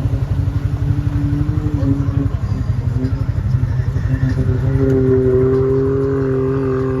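ATV engine running hard with a heavy, fast low pulsing; about halfway through, a higher steady engine whine comes in and holds level.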